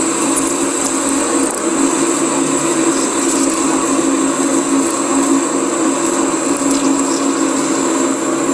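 Holbrook C8 metal lathe running steadily while a carbide parting blade cuts through a tough steel bar. It makes a constant hum with a high whine.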